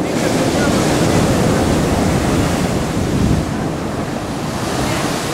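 Heavy storm surf crashing and churning against the shore and sea wall, with wind buffeting the microphone. The loudest wave breaks a little after three seconds in.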